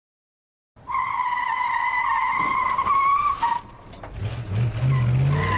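Car tyre-screech sound effect: a long, loud skid squeal starting about a second in and breaking off midway, then a low engine rev rising and a second, shorter squeal near the end.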